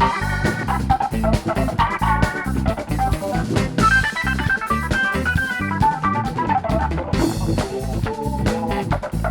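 A live band playing an instrumental passage with drum kit, organ and guitar.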